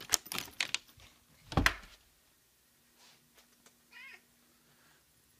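Several sharp clicks and one loud thump in the first two seconds, then a domestic cat meows once, briefly, about four seconds in.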